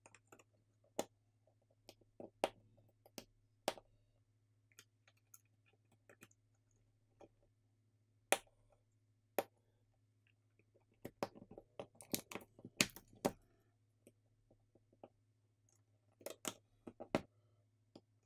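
Scattered light clicks and taps of small phone parts and hand tools during smartphone reassembly. They come in a quick cluster about two-thirds of the way through and again near the end, over a faint steady low hum.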